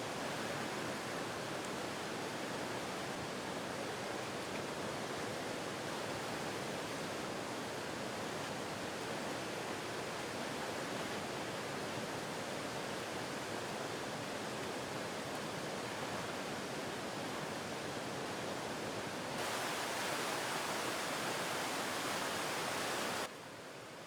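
Steady rushing of the Clearwater River pouring over the Baileys Chute cascade, an even roar of white water. It gets a little louder about four-fifths of the way through and drops away shortly before the end.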